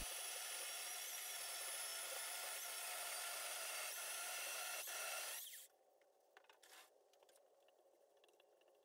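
Electric chainsaw in a home-built chainsaw mill ripping a maple log lengthwise, a steady motor whine with the chain's hiss through the wood, which cuts off suddenly about five and a half seconds in. Faint scrapes and knocks follow.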